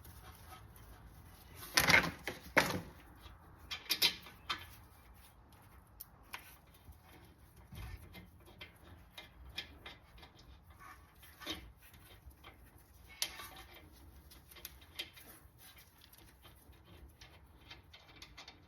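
Scattered metallic clicks and clinks of hand tools on the brake caliper hardware as the bolts are put back in. A few louder knocks come about two and four seconds in.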